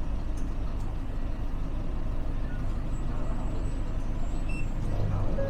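Steady low mechanical rumble of a vehicle or aircraft, with faint voices in the background.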